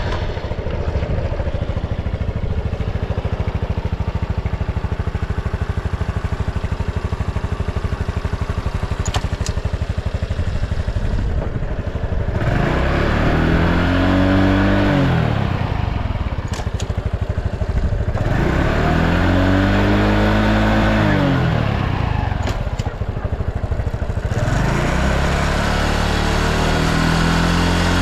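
Honda Super Cub 110 (JA07) fuel-injected, air-cooled single-cylinder four-stroke engine running at a steady idle. About halfway through it is revved up and back down twice, then held at raised revs near the end. It revs up cleanly with no abnormal noise.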